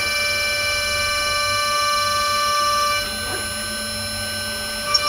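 High-speed spindle of a desktop CNC mill whining steadily as a 0.5 mm two-flute end mill cuts an aluminium mold. About three seconds in the whine changes pitch and gets a little quieter, and there is a short click near the end.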